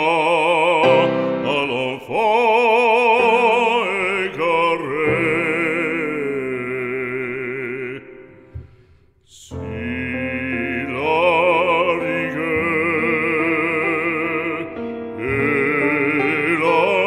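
Opera music: a singer holding long notes with strong vibrato over accompaniment. It fades almost to silence about eight seconds in and comes back a second and a half later.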